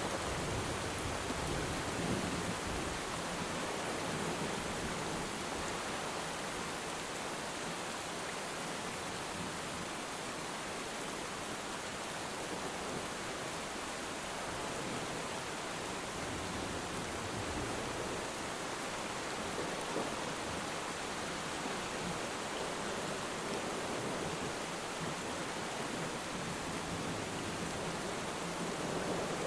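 Steady rain falling on water: an even, continuous hiss. A low rumble of distant thunder dies away in the first few seconds.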